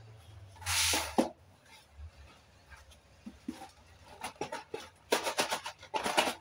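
Cardboard biscuit boxes handled and moved on a stone countertop: a brief scraping slide about a second in, then a run of quick rustles and taps, busiest near the end.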